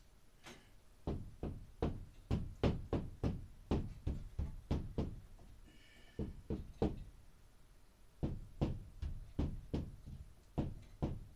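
Knocking on a sheetrock ceiling: three runs of sharp knocks, two to three a second, with short pauses between, sounding out the ceiling the old-fashioned way to find a stud.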